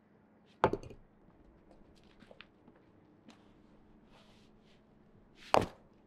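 Heavy stones knocking against other stones as they are lifted and set down: two sharp knocks, about half a second in and again near the end, with light scuffs and small clicks between.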